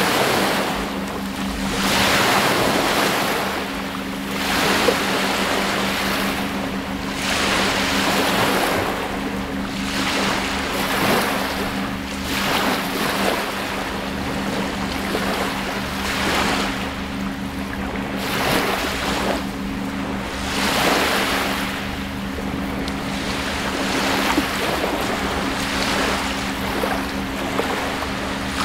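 Small lake waves lapping and washing up onto a sandy, pebbly shore, swelling and falling back about every two seconds. A steady low hum runs underneath.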